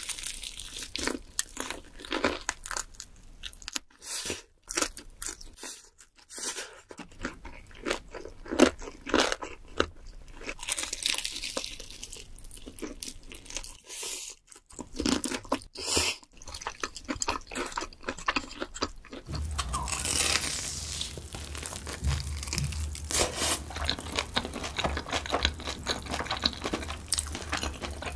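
Close-miked crunching and chewing as someone bites into crispy fried chicken, with sharp crackles of the breaded crust. About two-thirds of the way through the sound changes to a different eater's chewing over a steady low hum.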